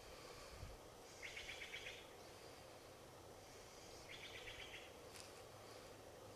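Faint outdoor background with a small bird's rapid chirping trill, heard twice, each lasting under a second.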